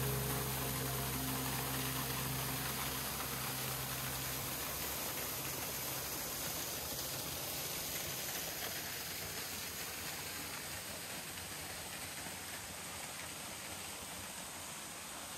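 Steady rushing hiss of a canyon creek and its waterfalls, slowly growing fainter. The held low notes of background music fade out within the first few seconds.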